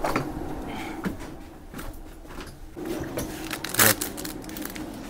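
Steady machinery hum in a ship's provision store, with handling noises from the delivered stores: a small knock about a second in and a short, sharp louder noise near four seconds.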